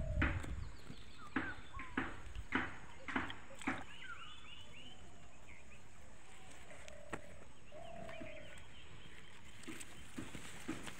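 Animals calling, mostly birds: a run of short sharp calls, a few short low whistled notes, and a rapid high chittering about four seconds in that comes back near the end.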